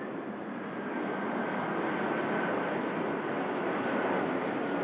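Four CFM56 turbofan engines of an Airbus A340-300 airliner at approach power, passing low overhead on final approach with gear down: a steady rushing jet noise that grows louder about a second in, with a faint high whine.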